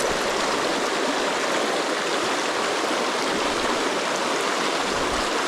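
Small river flowing over riffles: a steady rushing of water.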